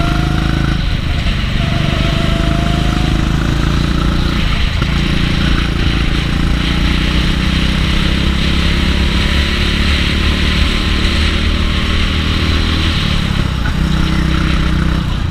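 Racing kart engine running under throttle, heard from onboard the kart. The revs dip briefly about a second in and again around four and a half seconds in, then hold high with a rushing hiss along the straight, and drop again near the end.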